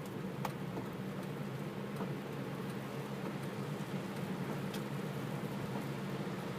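Rain falling steadily, with a few single drops ticking out louder now and then.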